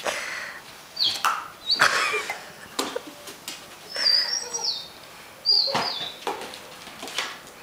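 A German shorthaired pointer puppy playing with a helium balloon: several short, high squeaks that drop in pitch, mixed with scuffling noises and sharp clicks.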